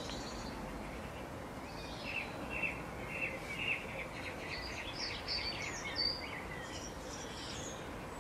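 Small birds chirping over a steady outdoor background hiss. A run of short repeated notes, about two a second, starts about two seconds in, followed by higher, quicker chirps that stop near the end.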